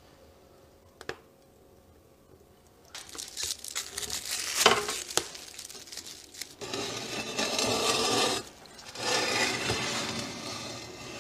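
Aluminium foil crinkling as a foil-wrapped pumpkin is handled and set into a cast iron pan, with one sharp knock. Then comes the heavy cast iron pan scraping over the stone floor of a wood-fired oven in two long pushes.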